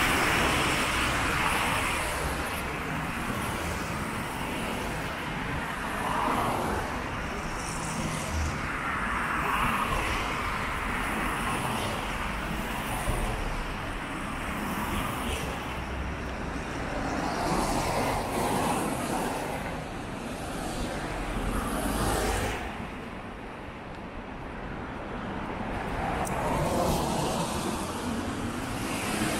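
Road traffic: cars passing one after another on a wet road, each pass swelling and fading over a few seconds.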